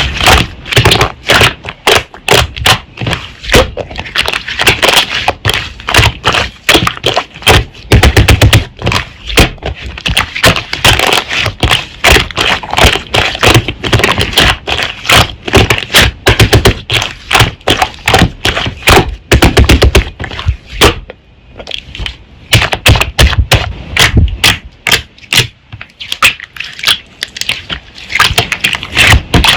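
Slime being pressed and worked by hand, giving rapid crisp clicks and pops, several a second, with a couple of short lulls.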